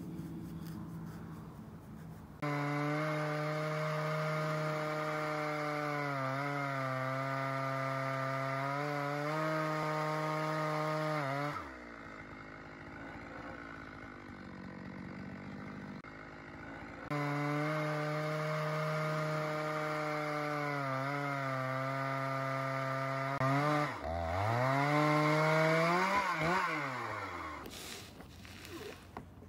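Chainsaw in a chainsaw mill ripping lengthwise through a dead ash log, held at steady high speed under load with slight dips in pitch. It cuts out twice. Near the end the engine revs up and down sharply.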